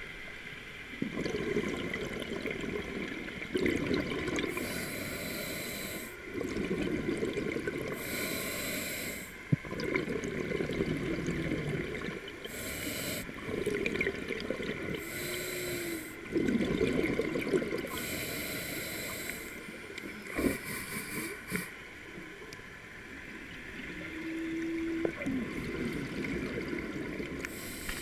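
Scuba diver breathing through a regulator underwater, breath after breath. Each cycle has a short high hiss and a longer rushing gurgle of exhaled bubbles, a few seconds apart.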